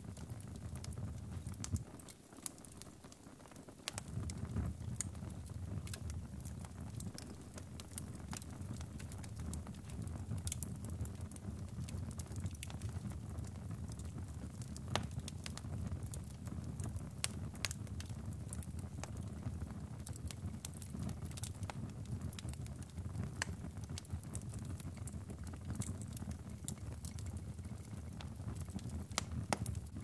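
Wood fire burning in a fireplace: a steady low rumble of flames with scattered sharp crackles and pops. The rumble drops away about two seconds in and returns about two seconds later.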